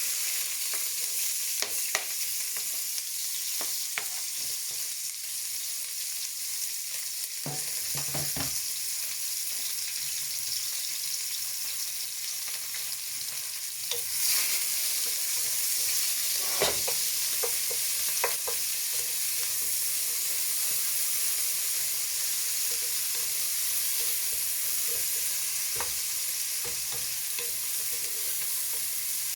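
Food sizzling steadily in hot oil in a frying pan, with occasional clinks and scrapes of a spoon stirring it.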